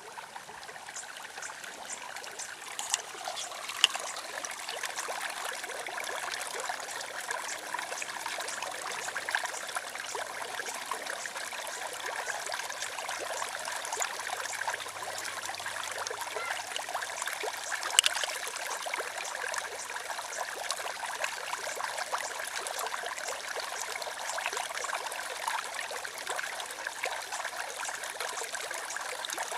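Running water trickling and splashing steadily, with a few brief sharper splashes or ticks standing out.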